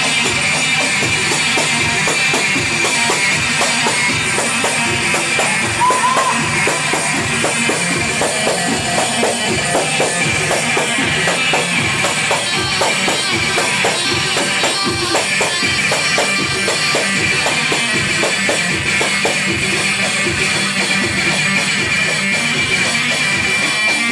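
Dabke dance music with a fast, steady percussion beat, jingling hand percussion, and a bright melodic lead.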